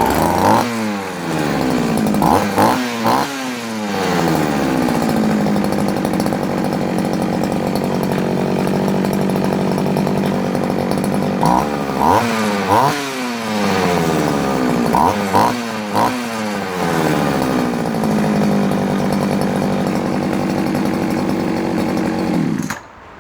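Oleo-Mac 945 two-stroke chainsaw running with its bar and chain removed and the choke off, idling steadily between several quick blips of the throttle, then cut off suddenly near the end.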